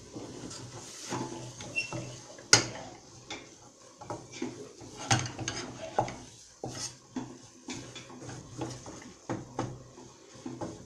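Wooden spoon scraping and knocking against a stainless steel saucepan while stirring a thick butter-and-flour roux, in irregular strokes, with one sharper knock about two and a half seconds in.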